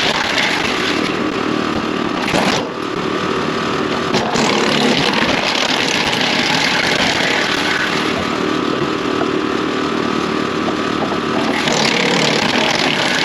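Woodland Mills WC68 six-inch PTO wood chipper running off a tractor, chipping branches with a loud, steady noise over the tractor engine. The noise dips briefly about two and a half seconds in.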